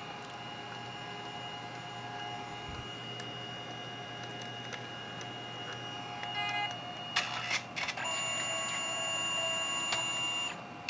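Canon Selphy CP510 dye-sublimation photo printer running the yellow pass of a test print after its print-head repair: a steady mechanism whine, two sharp clicks about seven seconds in, then a louder, higher whine that cuts off suddenly just before the end.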